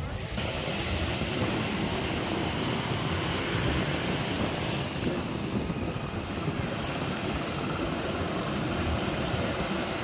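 Steady rushing noise of wind and water, with no distinct tones or strokes.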